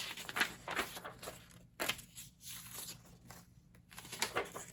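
Paper pages of an old book being handled and torn out: a run of short, irregular rustles and rips.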